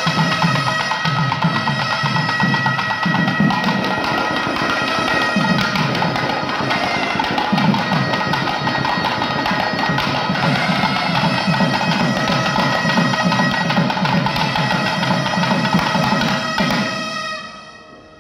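Kerala temple ensemble playing: a reed pipe holds long steady notes over dense hand-drum strokes. It all fades out about a second before the end.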